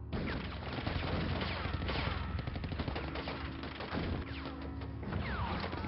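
Sustained battle gunfire from several rifles and machine guns, with shots coming thick and fast and overlapping without a break.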